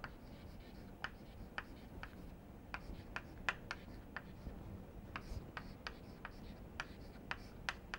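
Chalk writing on a blackboard: a string of faint, irregular taps and short scratches as the chalk strikes the board with each stroke.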